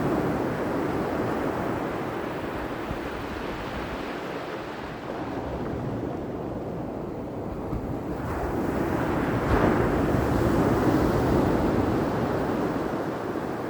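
Ocean surf: waves washing in with a steady rush that eases off in the middle and swells again about eight seconds in.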